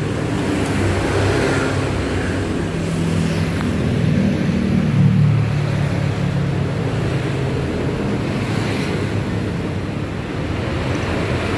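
An engine running steadily with a low hum, its pitch wavering and rising a little about five seconds in.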